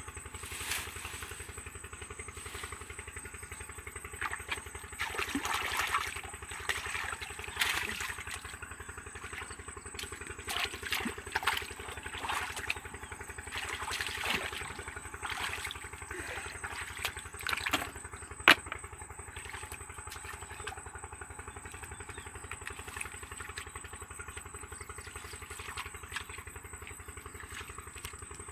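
A small engine running steadily, with scattered clicks and knocks over it and one sharp click about eighteen seconds in.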